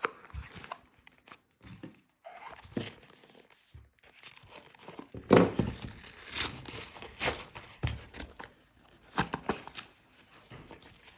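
Packaging being unwrapped and handled: irregular crinkling, tearing and rustling of wrapping with small knocks from the box, loudest a little past halfway.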